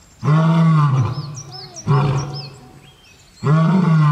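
Male lion roaring: three deep calls, the first and last long and the middle one shorter. Small birds chirp faintly in the background.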